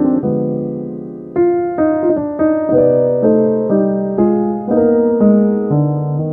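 Slow solo piano music. A chord rings and fades for about a second, then notes and chords are struck at an even pace, about two a second.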